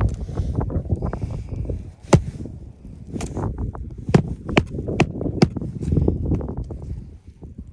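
Hand work on an asphalt shingle roof: a series of sharp taps and clicks of a metal tool on roofing nails and shingles, about six of them spread over a few seconds, over a low rumble.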